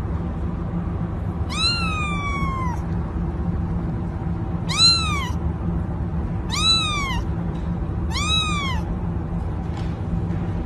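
A young kitten mewing four times: high-pitched calls that rise and fall, the first one longer and trailing downward. A steady low hum runs underneath.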